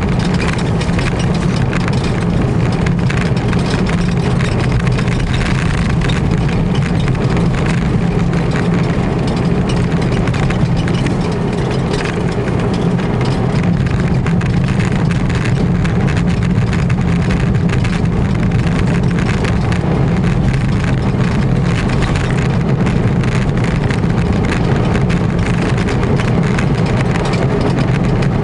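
The air-cooled 652 cc flat-twin engine of a 1982 Citroën Visa II Spécial running steadily while the car drives along, heard from inside the cabin.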